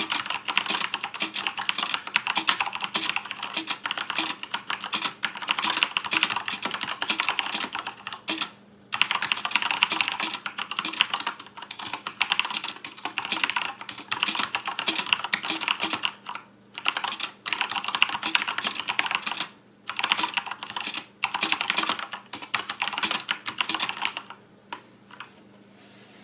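Fast, continuous typing on a Corsair K70 RGB mechanical keyboard with linear Cherry MX Red switches: a dense clatter of keystrokes with a few short pauses, trailing off near the end.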